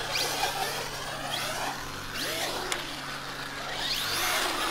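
Electric RC cars' motors whining as they are driven around a concrete bowl, the whine rising and falling in pitch several times as the throttle is worked, over the hiss of tyres on concrete.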